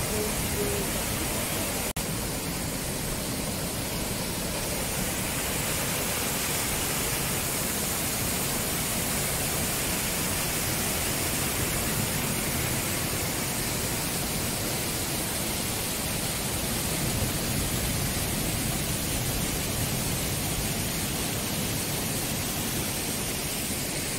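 Steady rushing water from a seasonal waterfall cascading over black lava rocks, with surf breaking on the shore mixed in.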